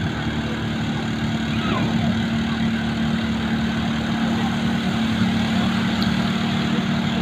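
Water truck's engine idling with a steady low hum, while hoses from its tanks spray water onto roadside plants.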